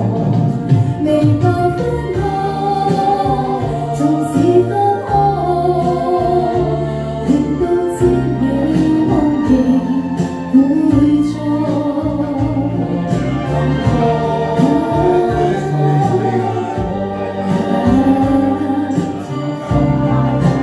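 Karaoke backing track of a Cantonese pop ballad, with a woman singing along through a handheld microphone.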